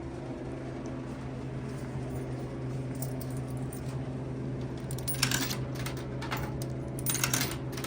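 Vintage vending machine humming steadily, with clusters of small metallic clicks and rattles about five and seven seconds in.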